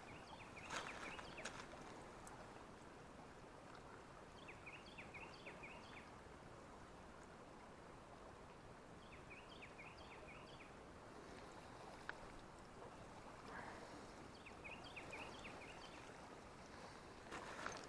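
Quiet creekside ambience with a songbird repeating a short phrase of quick, falling notes about every five seconds. A couple of faint clicks sound about a second in.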